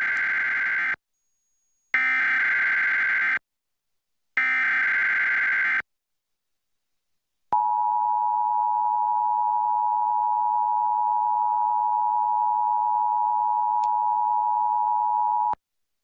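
Emergency Alert System required monthly test: three bursts of the SAME digital header, a buzzy warbling data screech each lasting about a second and a half with short gaps. After a pause comes the EAS two-tone attention signal (853 and 960 Hz together), held steady for about eight seconds and cut off sharply.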